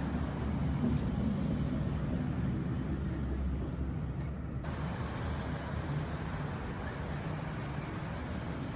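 Heavy rain coming down, a steady noisy rush that is strongest low down. The upper hiss drops away briefly about four seconds in.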